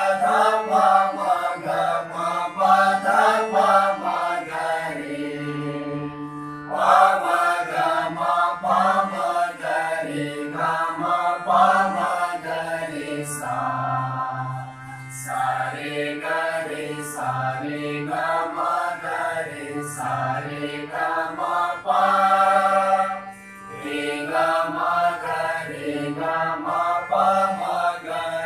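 A mixed group of male and female voices sings alankar scale exercises in unison to a harmonium, the pitch stepping up and down note by note. There are short breaks between phrases about six seconds in and again about twenty-three seconds in.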